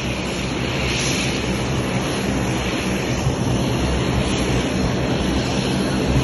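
Twin-engine turboprop airliner taxiing, its engines and propellers running steadily with a low hum under a broad rushing noise.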